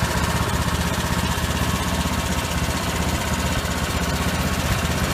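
Small engine of a Dragon trailer-mounted asphalt mixer running steadily at an even speed, with a fast, even firing pulse.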